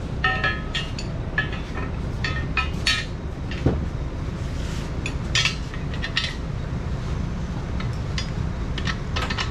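Steel bolts, nuts and backing plates clinking and knocking as sub-frame connector hardware is handled and worked into the frame holes: irregular short metallic clinks, a few briefly ringing, over a steady low hum.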